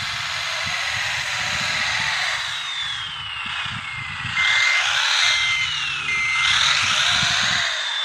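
Electric drive motors and hydraulic pump of a radio-controlled model wheel loader whining; the whine falls in pitch twice as the motors slow. Three short beeps sound in the middle.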